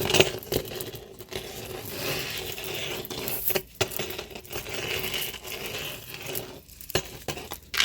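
Costume jewelry being handled and sorted by hand: metal chains and pieces clinking and rustling, with scattered small clicks.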